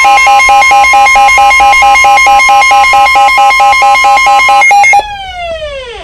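Midland weather alert radio sounding its warning alarm: a loud, rapid pulsing beep, about six a second, over a steady tone near 1 kHz, the NOAA Weather Radio warning alarm tone for a severe thunderstorm warning. Both cut off about five seconds in, and a falling tone glides down as the alarm ends.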